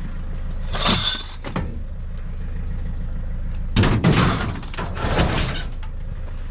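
Scrap metal clattering and clanking as it is handled and thrown, one crash about a second in and a longer burst of clattering around four to five seconds in, over a van engine idling steadily.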